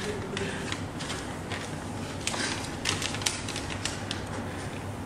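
Paper rustling and crinkling as a small folded sheet is handled and opened, in a run of irregular small crackles.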